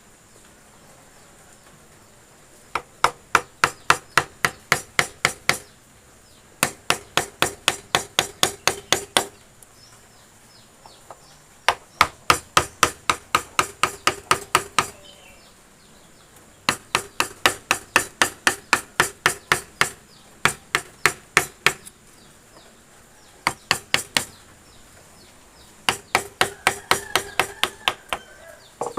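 Hammer blows on a wood-carving chisel, struck at about three to four a second in runs of a few seconds with short pauses between them.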